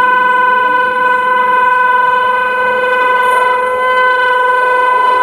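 Horn of a WAP7 electric locomotive held in one long, loud, steady note.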